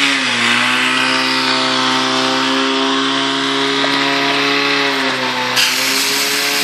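Portable fire pump's engine running flat out with a steady high drone, dipping a little in pitch about five seconds in. A loud hiss of water jets from the hose nozzles joins it soon after.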